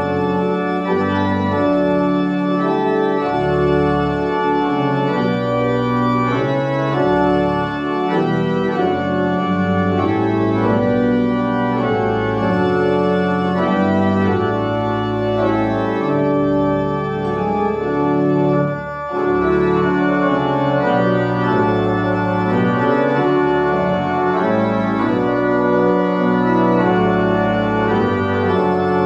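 Church organ playing slow, held chords, with a brief break about nineteen seconds in.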